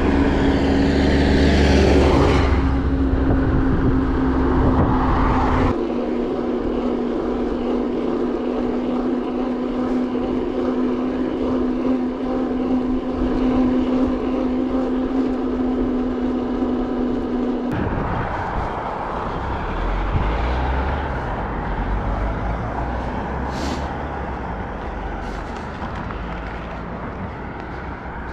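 A vehicle running, with a steady drone that drops slightly in pitch about two seconds in and cuts off suddenly about eighteen seconds in. Underneath is a continuous running rumble and noise.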